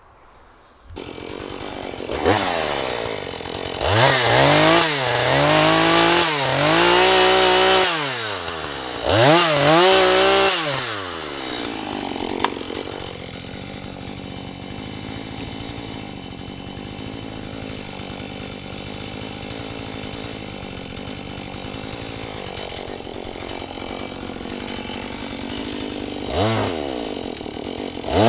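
Two-stroke chainsaw revving up and down several times from about a second in, then idling steadily, with one short rev near the end.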